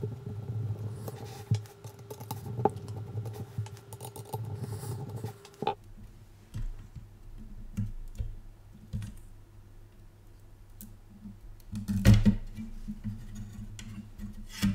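Small clicks and taps of metal and plastic parts being handled while a graphics card is taken apart, with a louder knock near the end. A steady hum runs underneath and stops about six seconds in.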